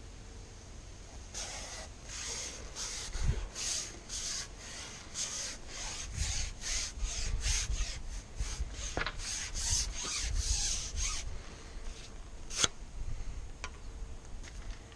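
Carbon fishing pole being drawn back hand over hand, sliding through the hands in a quick series of rasping rubbing strokes, about two or three a second, that stop after roughly ten seconds; a sharp click follows near the end.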